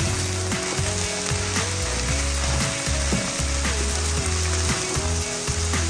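Fried rice sizzling in a hot pan as it is stirred and tossed with a wooden spatula, with a steady frying hiss throughout.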